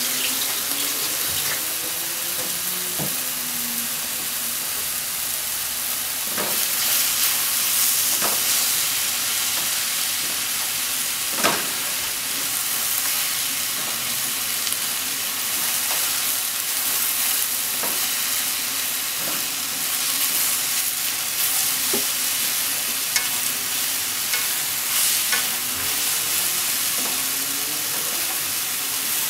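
Shiitake, enoki and green onion sizzling steadily as they are stir-fried in a nonstick frying pan, with scattered clicks of wooden chopsticks striking the pan; the loudest click comes about halfway through.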